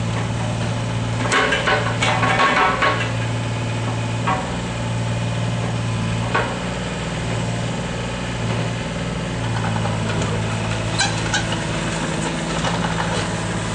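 Volvo EC25 mini excavator's diesel engine running steadily while the boom and arm are worked. A few sharp knocks from the machine come through, a cluster a second or two in and single ones about six and eleven seconds in.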